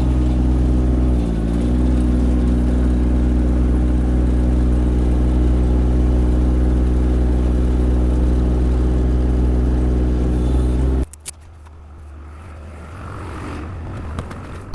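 Small diesel engine of a compact machine running loud and close and steady, its pitch dipping briefly about a second in as it takes a load. It cuts off abruptly about eleven seconds in, leaving only a faint low rumble.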